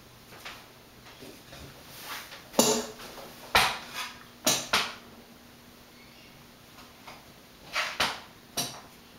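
1984 Four Seasons Venair 36-inch spinner ceiling fan running on low speed, quiet, with a faint steady hum. Louder sharp knocks and clatters cut across it, four or five about three to five seconds in and three more near the end.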